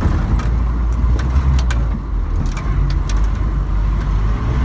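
Off-road 4x4's engine running steadily at low revs, a deep drone, with scattered light clicks and rattles.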